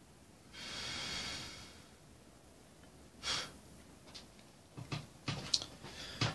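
A soft hiss lasting about a second, then a short scrape and a few light clicks and knocks as a soldering iron is lifted away from a freshly soldered wire joint.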